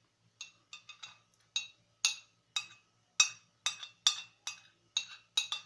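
Metal spoon clinking and scraping against a ceramic plate while scooping up rice: about fifteen sharp, ringing clinks at an uneven pace.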